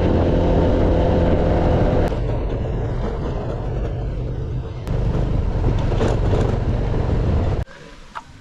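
Motor scooter engine running on the move, in short clips cut together one after another; the sound drops away abruptly near the end.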